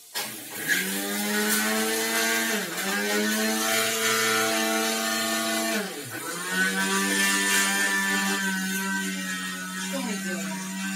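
An old hand blender's motor running in its chopper bowl, grinding granulated sugar into powdered sugar. It gives a steady whine that dips briefly and picks up again twice, about three and six seconds in.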